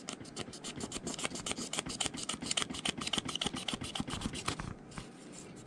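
Small knife skiving the end of a leather welt, rapid short scraping cuts of the blade through the leather, easing off about four and a half seconds in.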